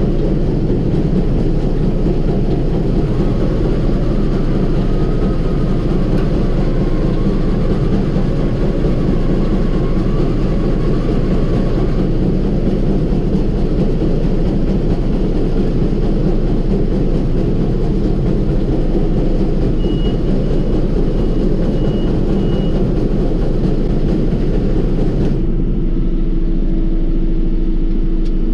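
John Deere 5075E tractor's three-cylinder diesel engine running steadily under load while driving a Krone KR250B round baler through the PTO. About 25 seconds in, the sound turns duller and a steady hum comes in.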